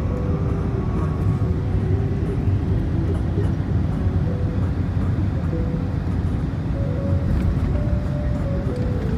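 Steady low rumble from an Airbus A380, with a faint tune of single notes playing over it.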